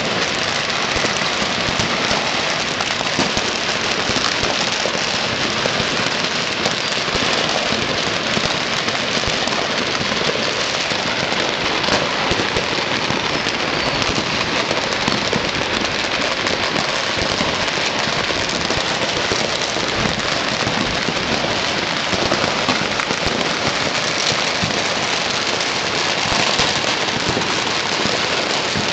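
Firecrackers and fireworks going off by the thousands across a city: countless sharp pops and crackles merging into one dense, unbroken din.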